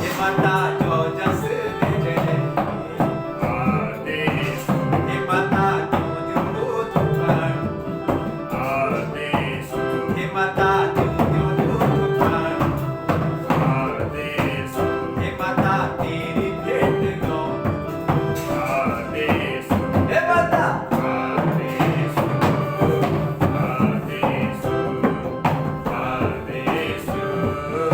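Devotional bhajan music: electronic keyboard playing held melodic notes over a steady dholak drum rhythm.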